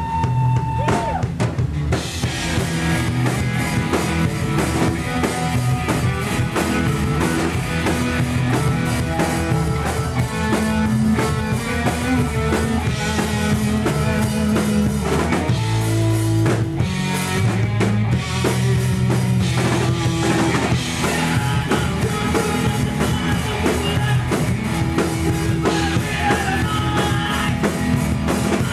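Live rock band playing, with drum kit, electric guitars, bass and keyboard.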